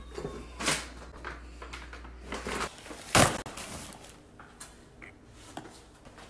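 Paper and plastic packaging rustling and knocking as it is handled: first a gift bag, then bags of puppy food. There is one sharp, louder thump a little after three seconds.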